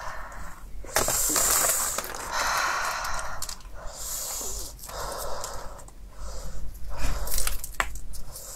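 Close-miked tearing of a whole steamed chicken on aluminium foil: the meat being pulled apart and the foil crinkling in several noisy bursts of about a second each, with a few sharp clicks near the end.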